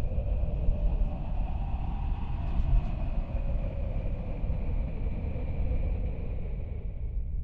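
A deep, steady rumble with a thin high whine held over it, typical of a layered sound effect.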